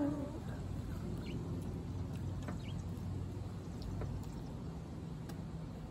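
A steady low mechanical hum, like a distant motor running, with a few faint short chirps over it.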